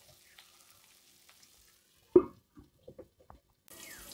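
A sharp metal clank about two seconds in as a steel lid is set on the kadai, followed by a few light clicks. Pork fat and spices sizzle faintly before it, and a steady sizzle comes up under the lid near the end.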